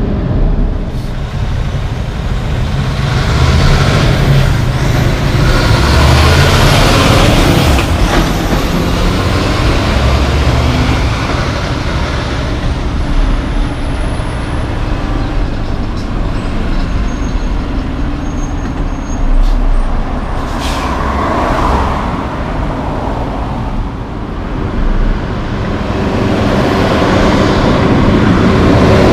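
Heavy diesel logging trucks going by in city traffic: deep engine rumble and tyre noise that swell and fade as each truck and passing car goes by, with a few brief sharp clicks.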